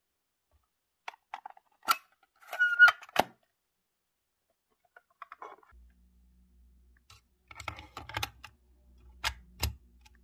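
Plastic clicks and rattles, with a brief squeaky creak about three seconds in, as a TDK SA60 cassette is handled out of its clear case. A second run of clicks and knocks comes near the end as it is set into the open cassette compartment of a Sharp JC-212 walkman.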